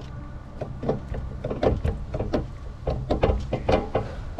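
Hand grease gun being pumped into a grease fitting on a John Deere mower: a run of irregular clicks and creaks from the gun's lever, several a second, over a steady low hum.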